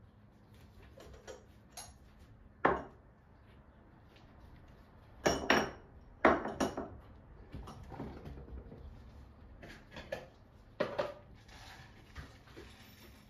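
A scattering of sharp taps and knocks on hard surfaces: one about three seconds in, a cluster of several between five and seven seconds, and another near eleven seconds.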